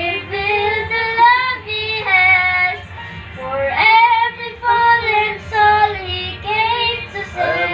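Children singing a song together, in phrases of about a second each with short breaks between them.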